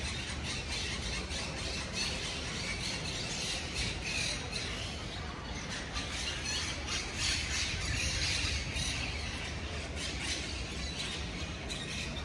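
Many birds calling at once, a dense, continuous high chatter, over a low street rumble.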